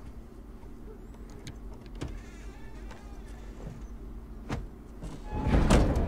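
Low, quiet drone from a TV drama's soundtrack with a few faint ticks, swelling louder about five seconds in.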